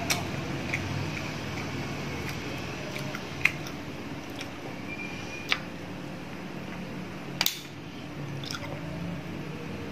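Close-up eating sounds: wet chewing and squishing, broken by sharp clicks as green mussel shells are handled and pried open. There are about six separate clicks, the loudest a quick double click about seven and a half seconds in.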